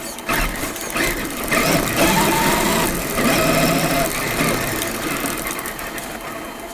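Electric drive of a Traxxas E-Maxx RC monster truck, motors and gears whining as it drives across grass. The pitch wavers up and down with the throttle, with knocks and rattles as the truck bounces.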